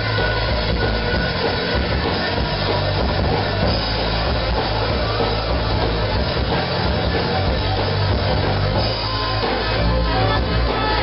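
Rock band playing live: drum kit and electric guitars, loud and continuous.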